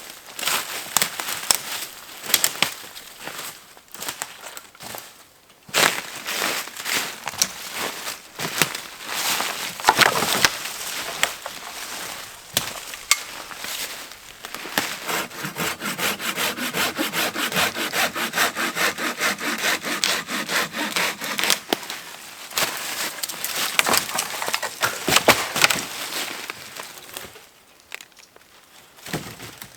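Hand saw cutting through wood for firewood, in quick, even back-and-forth strokes that stop shortly before the end.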